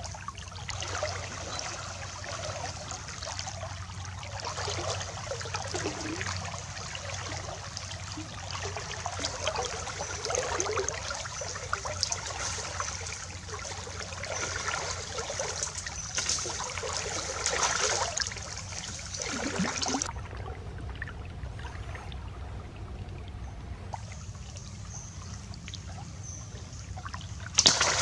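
Stream water trickling and sloshing as someone wades through it, with a sudden loud splash of kicked-up water near the end.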